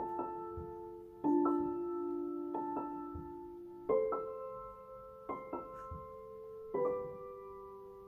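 Background piano music: slow, sustained chords, a new chord struck every second or two and left to ring.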